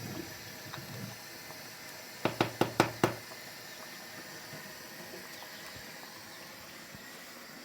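Five quick, sharp knocks in under a second, about two seconds in, over a faint steady hiss.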